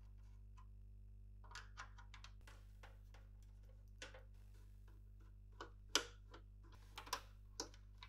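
Screwdriver and hands working on a Synology DS718+ NAS case: an irregular run of small clicks and taps as the rear screws are turned out and the case is handled, the sharpest about six seconds in.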